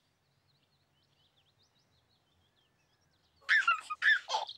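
Faint birdsong in near quiet, then about three and a half seconds in a baby laughs: a few short, loud giggles lasting about a second.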